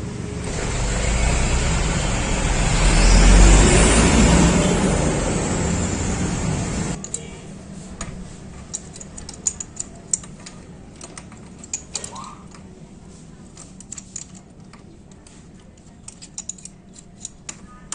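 A motor vehicle's engine noise swells and fades, then cuts off sharply about seven seconds in. After that come scattered light metallic clicks and taps of galvanized pipe fittings and a pipe wrench being handled.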